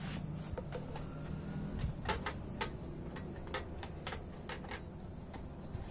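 Black plastic accessory tray being fitted onto a telescope tripod's leg-spreader bracket: a series of irregular light plastic clicks and taps as it is pressed and turned into place.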